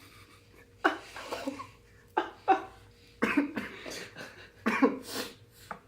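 A person coughing in a fit of about five harsh coughs spread over a few seconds, with something caught in the nose or throat while eating spicy food.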